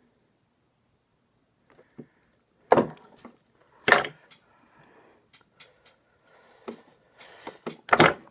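Handling noises while stripping wire insulation: three sharp knocks, at about three seconds, four seconds and near the end, among lighter clicks and scraping.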